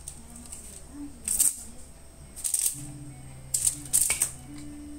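Four short, crisp rustling and rattling bursts as a cat swats at a wand toy from under a thin cloth sheet, the last one the loudest, over soft background music with held low notes.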